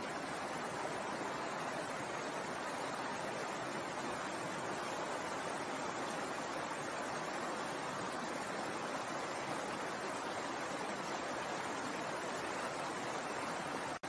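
Small rocky stream flowing over stones, a steady, even rush of running water.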